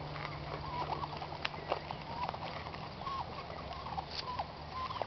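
A goat biting and chewing apple pieces taken from a hand, heard as a string of short sharp crunches. Birds chirp in the background with short repeated whistled notes.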